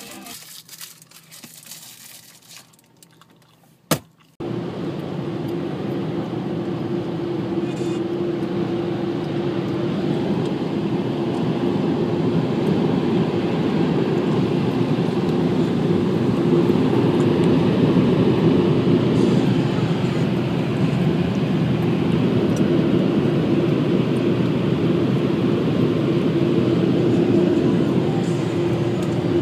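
Automatic car wash heard from inside the car: water jets and spinning brushes work over the body and glass in a loud, steady wash noise. It starts abruptly, right after a sharp click about four seconds in.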